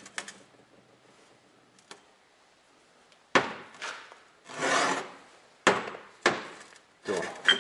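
Heavy machined steel pins, turned from C45 bar, set down and rolled against each other on a workbench: about six clunks and short scrapes in the second half, after a quiet first few seconds.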